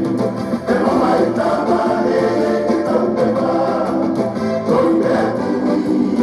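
Music: a group of voices singing together in harmony with instrumental backing, steady throughout.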